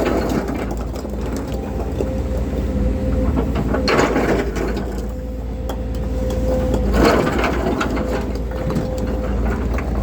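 Volvo excavator's diesel engine running steadily under load with a steady whine, and two louder bursts of scraping and crunching, about four and seven seconds in, as the bucket works soil and rock.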